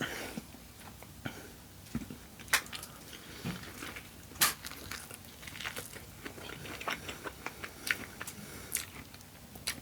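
A person eating close to the microphone: scattered wet chewing clicks and bites, with a few sharper crunches about two and a half and four and a half seconds in.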